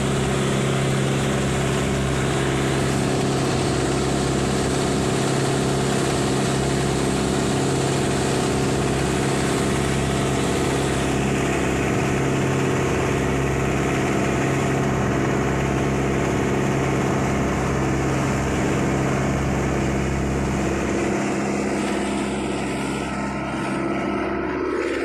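Mitsubishi 4DR5 four-cylinder diesel engine running steadily under load, driving a flatboat at speed, with water rushing and spraying along the hull.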